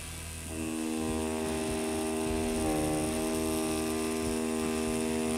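Tattoo machine running with a steady hum that starts about half a second in, its pitch dipping briefly around the middle.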